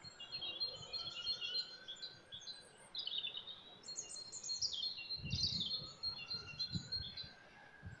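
Songbirds singing: a continuous run of high, quick twittering and warbling phrases, with a few low rumbles in the middle.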